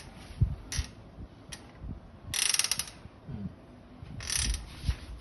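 Folding bicycle being handled: two short bursts of rapid ratchet clicking, as of a freewheel spinning, with a few single clicks and dull low knocks in between.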